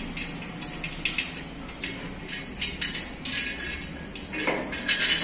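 Hand tools and bolts clinking against a motorcycle's exhaust muffler as it is fitted: a scattered series of short, light metallic clicks and taps, with a louder cluster near the end.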